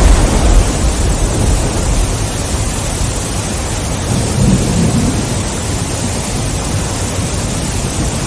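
Thunder rumbling over steady heavy rain, loudest in the first second, with another low roll of thunder about four and a half seconds in.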